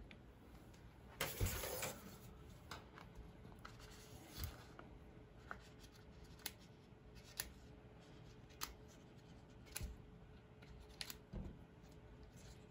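Small scissors snipping the leathery shell of a blood python egg: scattered faint, sharp snips about once a second, with a louder rustle of handling just over a second in.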